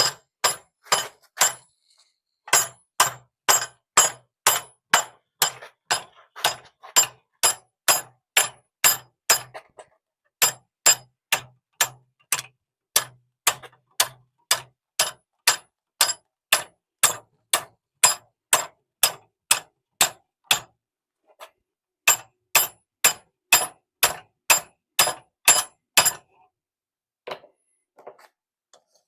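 Blacksmith's hammer striking hot steel on an anvil in a steady rhythm of about two blows a second, each with a bright metallic ring, as the bottle opener's hole is driven wider. The hammering breaks off briefly twice, and near the end the blows come fewer and scattered.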